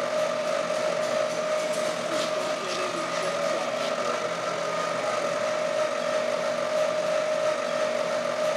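Horizontal boring mill face-milling a welded steel bolt-on adapter plate flat to take out weld warping, a steady cutting whine with one held mid-pitched tone.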